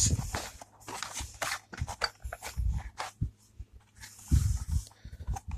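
Hands opening the box of a motorcycle disc lock: rustling packaging with scattered light clicks and knocks.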